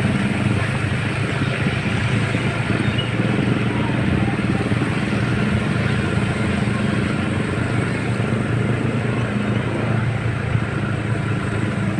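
Steady heavy rain with a low, even engine hum running underneath.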